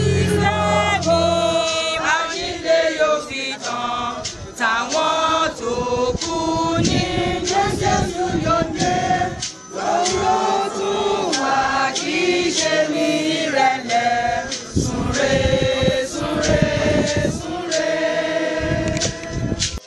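A congregation singing a hymn together.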